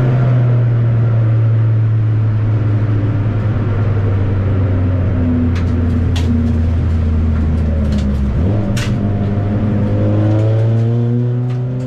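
Ford Puma Cup race car's four-cylinder engine heard from inside the cabin, the revs easing down steadily for most of the time, then rising again near the end as the car accelerates. A few sharp clicks come in the middle.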